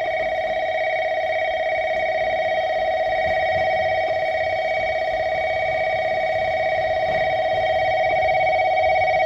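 Station platform approach warning bell, an electronic bell ringing steadily with a fast warble and growing slightly louder, signalling a train arriving at the platform.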